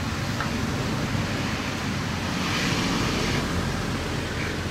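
Steady outdoor background noise with a rushing, hiss-like quality that swells for about a second midway.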